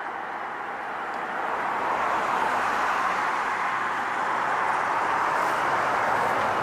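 Road traffic: a steady rush of passing vehicles that swells about a second and a half in and then holds.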